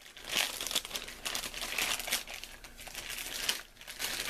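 Plastic packaging crinkling and rustling as it is handled and opened, in irregular crackly bursts with a short pause a little after the middle.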